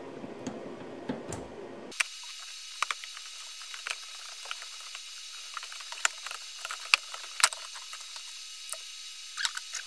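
Plastic interior trim of a car's center console being pried and lifted loose: scattered, irregular clicks and taps of clips and panels, over a faint steady hiss.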